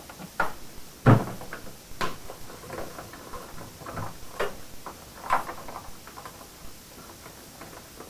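A plastic jerrycan set down on a concrete floor with a thump about a second in, followed by a run of clicks, knocks and rattles as the can is handled at floor level.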